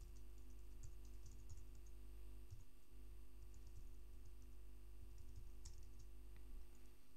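Faint computer keyboard typing: a quick run of light keystrokes in the first couple of seconds, then a few isolated clicks, one sharper than the rest about two-thirds of the way through, over a steady low hum.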